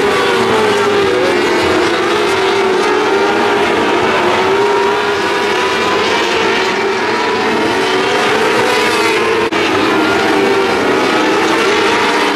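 Several 600cc micro sprint cars racing together, their high-revving motorcycle engines wailing in overlapping, wavering pitches. The sound cuts out for a split second about nine and a half seconds in.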